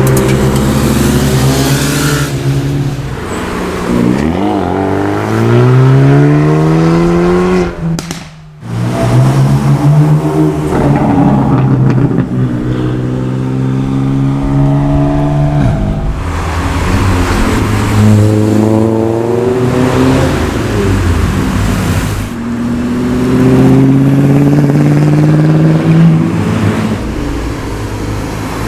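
High-performance car engines accelerating hard, the engine note climbing in pitch and dropping back at each gear change, over several successive runs. There is a brief gap about eight seconds in.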